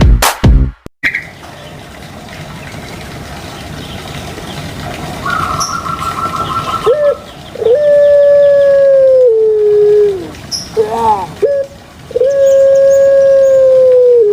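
Puter pelung dove (Streptopelia risoria) calling twice, loudly: each call is a short note followed by a long drawn-out coo held on one pitch that drops lower near its end. The last second of an electronic music intro comes before the calls.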